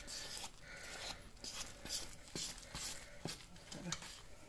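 A metal fork stirring and scraping a crumbly mix of wheat starch and boiling water in a stainless steel bowl, in soft, irregular strokes a few times a second.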